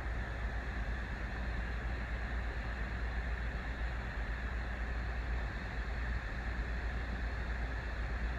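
Steady background noise: a constant low hum with an even hiss over it and no distinct events.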